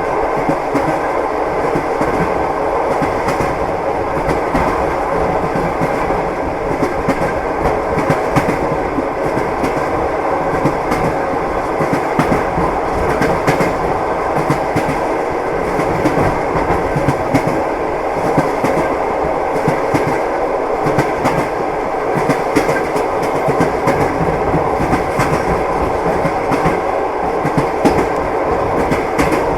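Train wheels knocking over the rail joints at running speed: a continuous steady rumble with frequent clicks and clacks.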